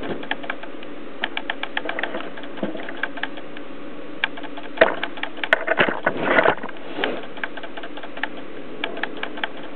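Irregular clicking from a camcorder's auto-focus motor over a steady low hum, with a louder burst of rustling and a few knocks about five to six and a half seconds in.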